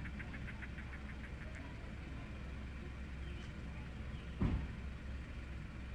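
A steady low rumble like a distant engine, with a short rapid run of chirps, about seven a second, fading out in the first second and a half. A single dull thump about four and a half seconds in is the loudest sound.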